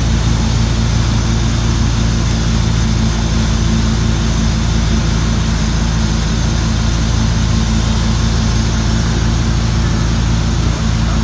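A wake boat's engine running steadily under way, a hum of several steady low tones over a constant rush of noise.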